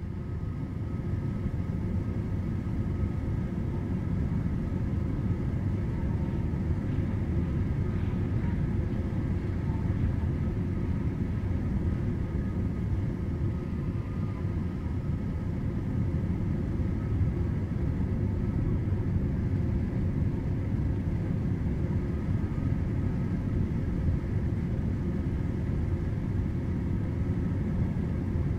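A steady low rumble that fades in at the start, with faint steady tones above it.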